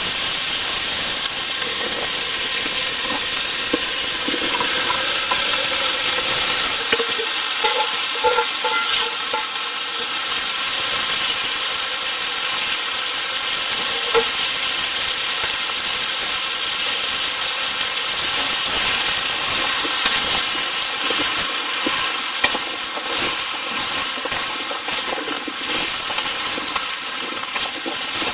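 Food frying and sizzling in a pan over a campfire: a steady loud hiss, with a scatter of irregular crackles and pops in the second half.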